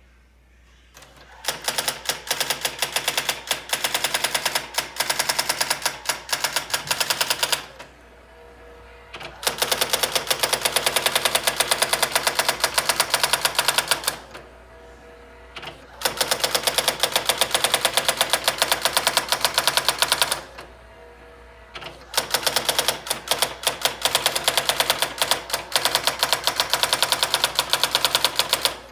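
Brother SX-4000 electronic typewriter printing: four runs of rapid, evenly paced key strikes, each several seconds long, separated by pauses of a second or two.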